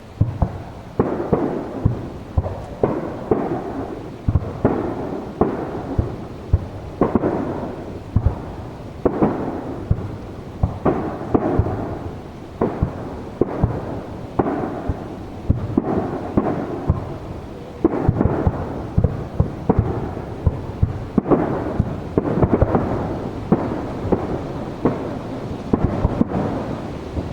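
Aerial fireworks shells bursting in rapid succession: a dense barrage of sharp booms, several a second, each followed by a rolling rumble of echo. The barrage starts abruptly after a quieter lull.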